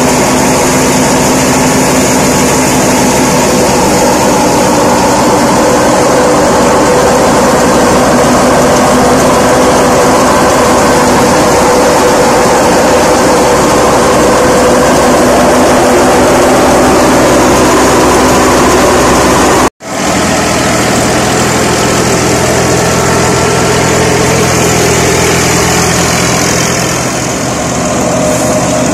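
Tractor-powered wheat thresher running: a loud, steady drone of the tractor engine and the belt-driven threshing drum, broken by a momentary drop-out about two-thirds of the way through.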